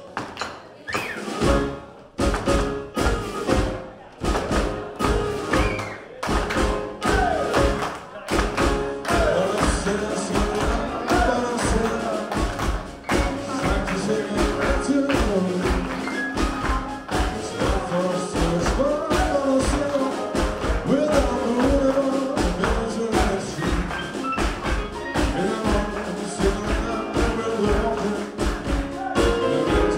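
Live small jazz-blues band of electric guitar, Hammond organ, upright bass, saxophone and drums playing an instrumental passage. It opens with separate accented hits and short gaps, then settles into a steady groove with melodic horn and organ lines about eight seconds in.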